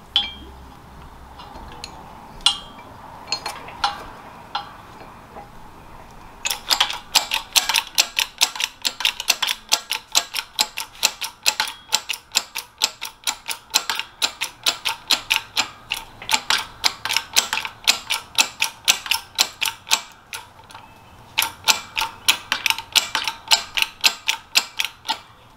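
Hand tools working metal on a Mazda RX-7 FC suspension link: a steady run of sharp metallic clicks, about three a second, as the old rubber bushing is forced out. It pauses about 20 seconds in and resumes.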